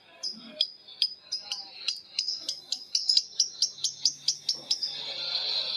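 Lovebird giving its long 'ngekek' chatter: a series of sharp, high chirps that speed up from about three to six a second and merge into a continuous chatter near the end.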